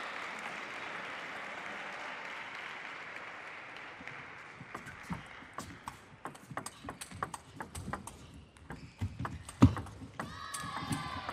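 Applause dying away, then a table tennis rally: the celluloid ball clicking on the table and off the players' bats in quick, irregular succession, with one louder hit near the end.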